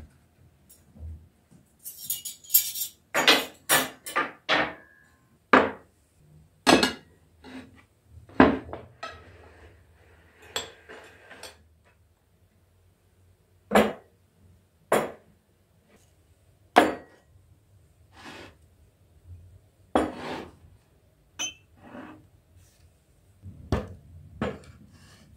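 Dishes and cutlery being set down and handled on a wooden table: a series of separate, irregular clinks and knocks, thickest in the first few seconds, then sparser.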